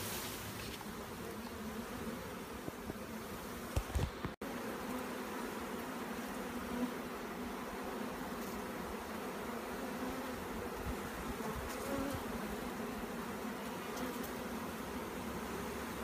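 A swarm of honey bees buzzing, a steady hum of many bees in flight around the cluster, with a couple of brief knocks and a short break about four seconds in.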